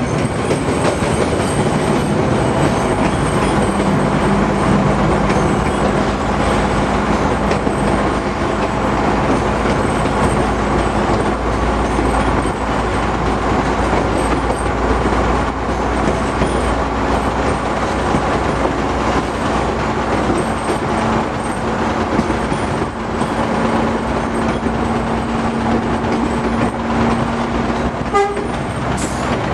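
Train running through a rail tunnel: a loud, steady rumble and rattle of the wheels on the track, with a steady low drone through most of it.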